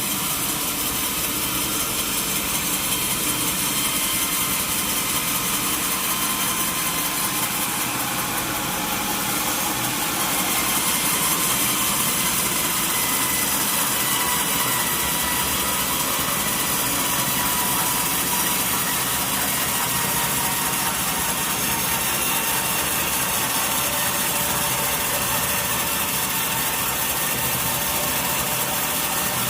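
Sawmill saw running and cutting through a mahogany log: a steady mechanical noise with a faint high whine, getting slightly louder about ten seconds in.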